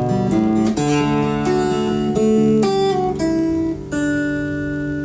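Background music: acoustic guitar played with plucked notes and strums, ending on a held final chord that rings out near the end.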